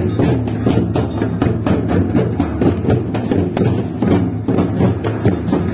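Music carried by a drum beating a fast, even rhythm, several strikes a second, over steady low notes.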